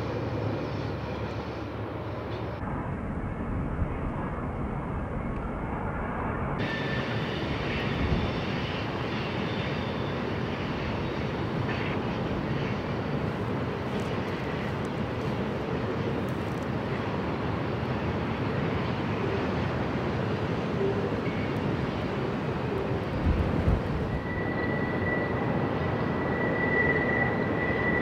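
Freight train rolling by: a steady rumble and rush of wheels and cars on the rails, with a thin, high wheel squeal setting in near the end.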